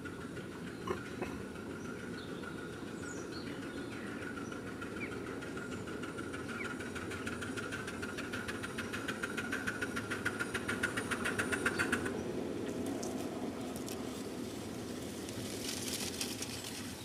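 Miniature steam locomotive approaching: an even chuffing exhaust beat that grows louder and quicker, then stops abruptly, followed by a hiss of steam near the end. A few bird chirps.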